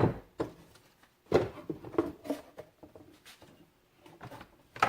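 Tools and small metal parts being handled: a sharp knock at the start, then a run of short clatters and rustles about a second in, and a few light clicks near the end.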